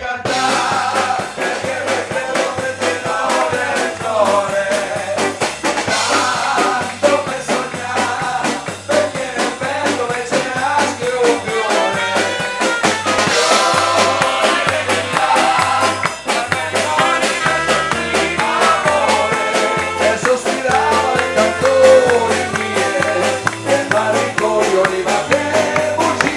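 Swing band playing an upbeat number with a male singer, saxophone and trumpet over a steady drum-kit beat and a bass line stepping on each beat.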